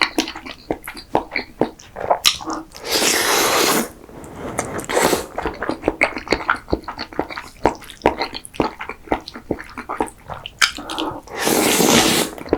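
Close-miked wet chewing and mouth smacking on creamy pasta, a constant run of sticky clicks, broken by two long, loud slurps, one about three seconds in and one near the end.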